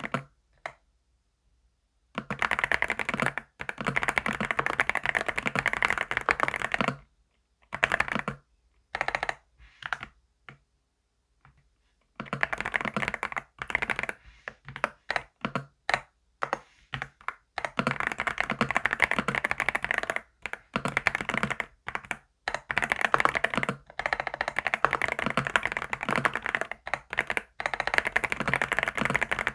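Typing on a computer keyboard: fast runs of key clacks, with brief stops. There is a short break a couple of seconds in, another in the middle, and scattered single keystrokes between them.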